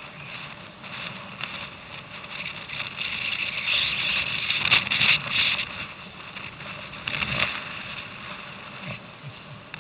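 Choppy, wind-driven water slapping and splashing against kayaks, with strong wind buffeting the microphone; it swells louder through the middle, with a few sharper surges.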